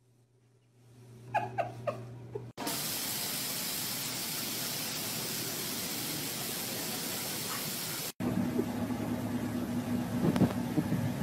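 A few short squeaks, then a steady hiss of noise for about five seconds that cuts off suddenly, followed by a car's engine running with a steady hum and a few knocks.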